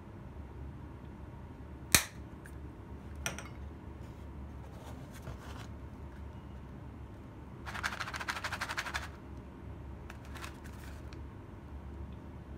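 A plastic flip-top shaker cap snapping shut with one sharp click, followed later by light handling clicks and about a second of rapid rattling as a kraft-paper refill box of peppercorns is handled.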